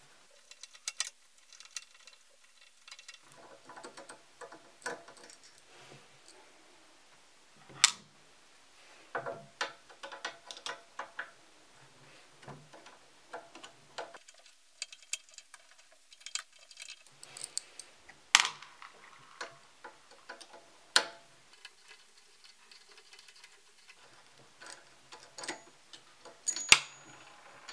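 A screwdriver backing out small screws from a telescope's metal focuser plate: irregular light ticks and scrapes of the blade in the screw heads, with a few sharper clicks now and then.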